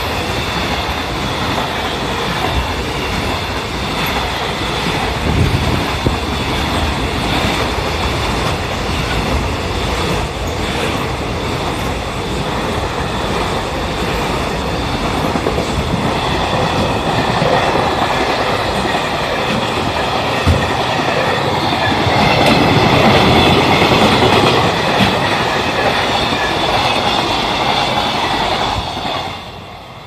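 Long container freight train running past close by: a loud, steady rumble of wagons on the rails. It drops away sharply about a second before the end as the last wagon passes.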